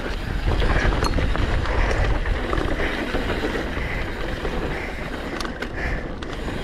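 Downhill mountain bike running fast over a loose dirt trail: tyres crunching on dirt, with wind rumbling on the camera microphone and a few sharp knocks from bumps.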